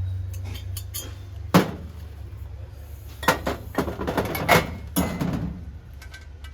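Hard objects, likely metal, being handled: one sharp knock about a second and a half in, then a run of knocks and clinks near the middle, over a steady low hum.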